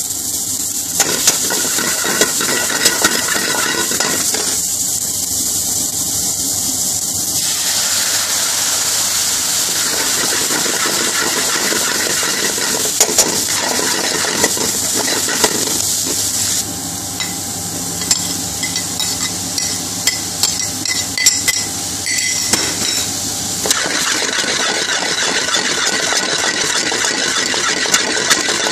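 Garlic, onion and mushrooms frying in an aluminium pan over a gas flame: a steady sizzling roar, broken by frequent short clacks and scrapes as a metal ladle stirs and the pan is tossed.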